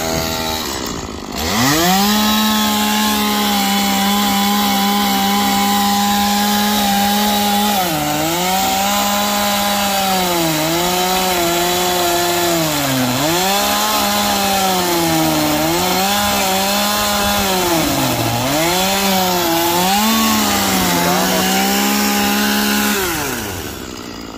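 Stihl two-stroke chainsaw revved to full throttle about a second in and held there. It then cuts into a large log round, the engine pitch sagging and recovering again and again as the chain bites into the wood. Near the end the throttle is released and it drops back to idle.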